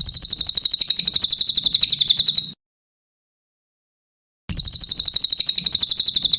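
Cililin song: a very fast, high-pitched chattering trill of evenly repeated notes, given twice, each phrase about two and a half seconds long with a two-second gap between. The two phrases are identical, a looped recording played to tutor captive songbirds.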